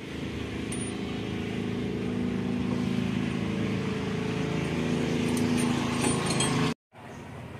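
An engine running steadily at an even pitch, getting slightly louder, with a few light metallic clinks. The sound cuts off abruptly near the end.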